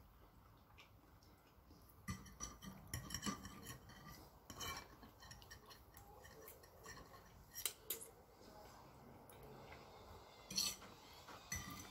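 Metal fork clinking and scraping against a plate while pasta is twirled and picked up: a run of quick clinks from about two to five seconds in, then a few single sharper clinks.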